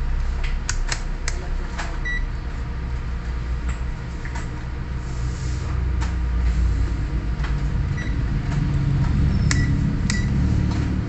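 Digital multimeter probe tips being tapped together while zeroing the leads. There are scattered light clicks and a few very short, high beeps, over a steady low hum.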